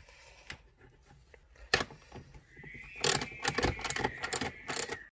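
Socket ratchet working on the 12 mm stock bolts of a Toyota MR2 Spyder's shifter assembly: a few separate metallic clicks, then a quick run of ratcheting clicks in the last two seconds.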